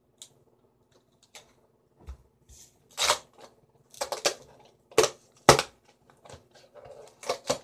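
Handling noise as a borax container is opened and worked with: a few faint ticks, then from about three seconds in a run of loud rustles and sharp knocks.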